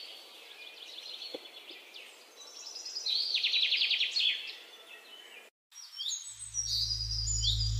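Songbirds chirping and calling, with a fast trill of repeated notes about three seconds in. After a brief dropout near the end, music with a low steady drone comes in under the birdsong.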